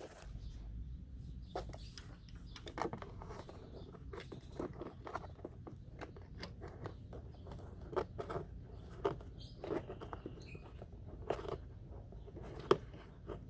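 Irregular light clicks and knocks of hands and a ratchet working the spark plug back into a Honda Ruckus scooter's engine, with a brief high squeak about ten seconds in.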